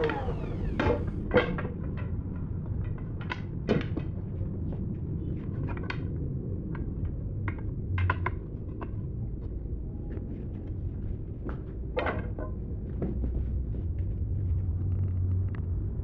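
Scattered light knocks and clicks of wood and tools being handled, over a steady low rumble.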